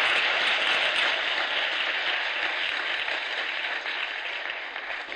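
Audience applauding after a lecture point, the clapping fading gradually away.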